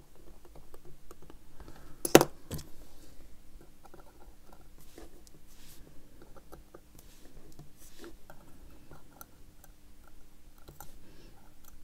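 Small clicks and light scrapes of steel tweezers and tiny parts on a Seiko 6139 chronograph movement in a movement holder as it is taken apart, with one sharper click about two seconds in.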